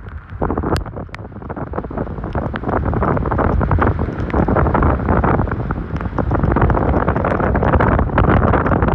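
Tropical-storm wind buffeting the microphone in heavy gusts while the camera rides in a moving vehicle. The rush dips just after the start, then builds and stays loud from about five seconds in.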